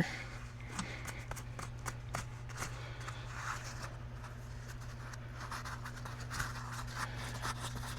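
Small metallic clicks and light scrapes of a nut being tried on the threaded pulley shaft of a replacement alternator, over a steady low hum.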